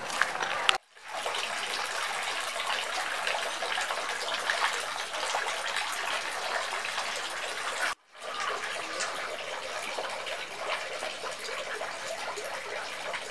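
Water pouring steadily from bamboo spouts into the basin of a Shinto shrine's hand-washing fountain (temizuya), a constant splashing trickle. It drops out briefly about a second in and again about eight seconds in.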